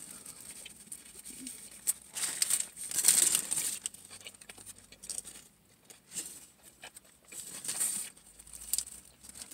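Paper sandwich wrapper crinkling and rustling in irregular bursts, loudest about two to three seconds in, mixed with chewing.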